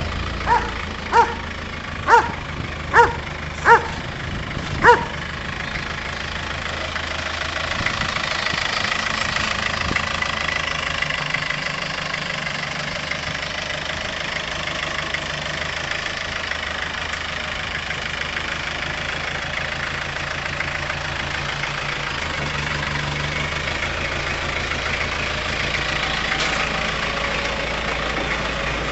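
A dog barks six times in quick succession over the steady idle of a vehicle engine. After the barking stops, the engine keeps idling.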